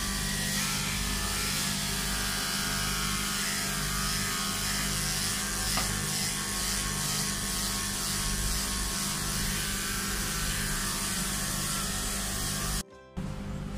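Electric dog clipper fitted with a #4FC blade running steadily as it shaves down a Pomeranian's coat. The sound cuts out for a moment near the end, then goes on more quietly.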